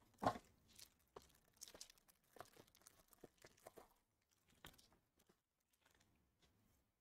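Foil wrapper of a trading-card pack being torn open and crinkled, faint: one louder rip just after the start, then scattered soft crinkles and clicks that die away about two-thirds of the way through.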